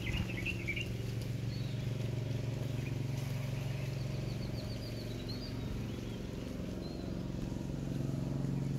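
A steady low mechanical hum, like a running motor, with small birds chirping over it in short trills at the start and again in the middle.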